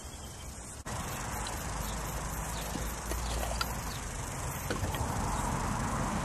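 Faint clicks and taps of a small brass alcohol stove being handled, its screw lid taken off and the burner set into a steel stand, over a steady outdoor background hiss with a low rumble that grows stronger after about two seconds.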